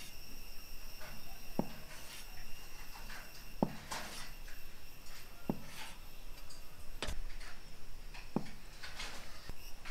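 A kitchen knife slicing through a block of tofu and knocking on a wooden chopping board, a short sharp knock every second or two with soft scraping between cuts. Faint steady high tones sit underneath.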